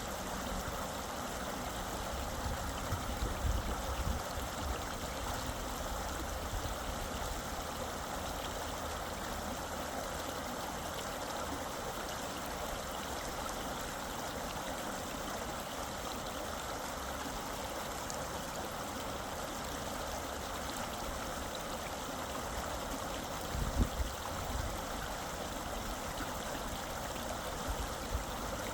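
Small stream flowing steadily over stones, an even babbling rush of water. A few brief low rumbles come in a few seconds in and again near the end.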